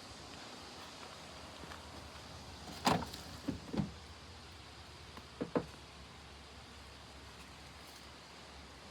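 A pickup truck's door being handled: a short knock about three seconds in, then a few brief creaks and clicks, over a faint steady background.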